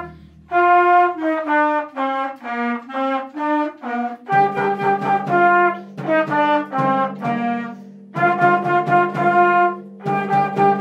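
A flute, clarinet and trumpet trio playing a tune together, note by note in short phrases with brief breaks between them. About four seconds in, a lower held part joins under the melody.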